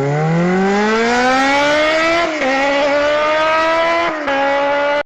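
Car engine accelerating hard, its pitch climbing steadily and dropping back twice, about two seconds in and again near four seconds, as it changes up a gear. The sound cuts off suddenly at the end.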